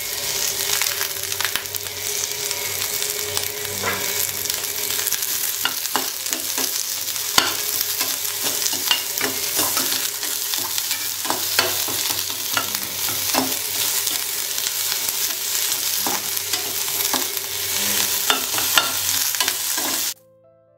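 Sliced onion and lentils sizzling in hot oil in a stainless-steel pan while a metal spatula stirs them, scraping and clinking against the pan. The sound cuts off abruptly just before the end.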